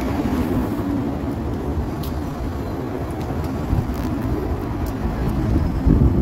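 Steady low rumble of urban rail and road traffic, with a Cologne Stadtbahn light-rail car approaching on the tracks below. The rumble swells briefly near the end.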